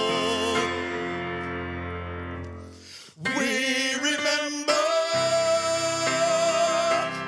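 Two men singing a song with piano accompaniment: a held note with vibrato fades away over about three seconds, then after a brief break the singing and instruments come back in.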